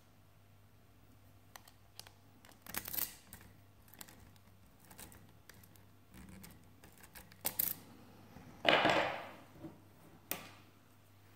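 Small metallic clicks and scrapes of hands and tools working an Avocet ABS euro cylinder lock clamped in a vise. About nine seconds in comes the loudest sound, a scraping rasp lasting about a second.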